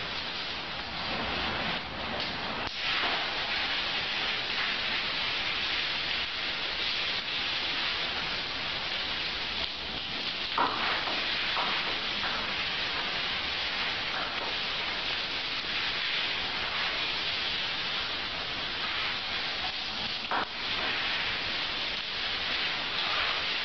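Shower water running steadily, a continuous rain-like hiss, with two brief sharp sounds about ten and twenty seconds in.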